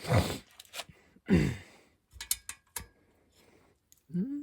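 Hand tools from a socket set clicking and clinking, with a few sharp clicks in the middle, while a ratchet and extension are fitted to undo the exhaust bolts on a small mower engine. Two short, louder sounds falling in pitch come at the start and about a second and a half in, and a brief low hum comes near the end.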